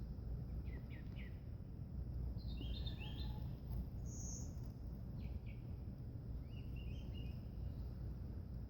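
Wild birds chirping in scattered short calls, with a brief trill near the end, over a steady low background rumble.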